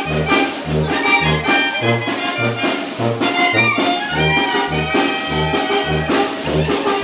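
A Oaxacan banda de viento (village brass band) playing a chilena: a sousaphone bass line going back and forth between two low notes about twice a second, under trombones and trumpets playing the melody.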